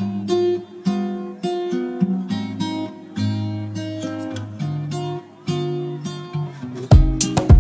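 Background music: plucked acoustic guitar notes, with heavy drum beats coming in near the end.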